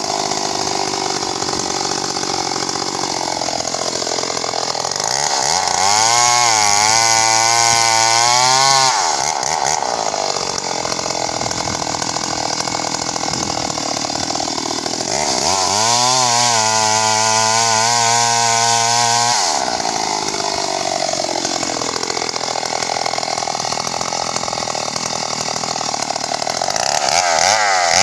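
Stihl MS 381 two-stroke chainsaw cutting into a kapok trunk, running hard under load. Twice it climbs for a few seconds to a higher, clearer, louder pitch, and it does so again near the end.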